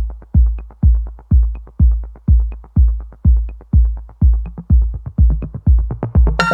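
Background electronic dance music: a heavy, steady kick drum about twice a second, with a synth line coming in near the end.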